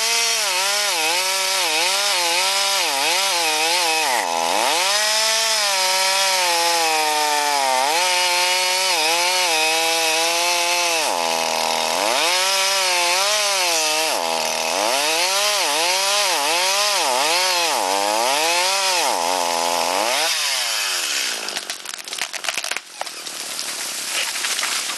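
Chainsaw running at high revs while cutting wood, its pitch dipping and recovering over and over as the chain loads up in the cut. About twenty seconds in the engine winds down with a falling pitch, and a rougher clattering noise follows.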